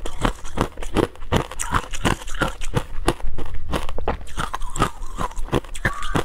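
Hard ice being chewed, heard very close by a microphone just below the mouth: crisp, crackling crunches at about five a second.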